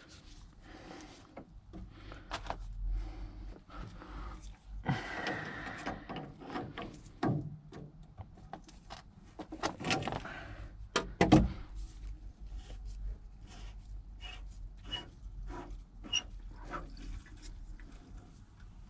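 Hand tools working on a valve and its pipework: scattered clicks, knocks and scrapes, with one louder knock about eleven seconds in.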